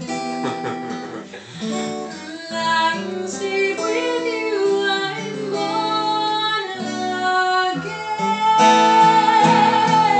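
Acoustic guitar playing slow chords in an instrumental passage between sung lines, with a woman's voice singing long wordless notes over it, one held from near the end.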